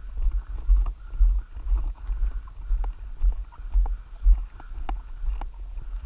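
Footsteps crunching on a gravel dirt road at walking pace, with a low, uneven thumping rumble on the microphone from being carried along.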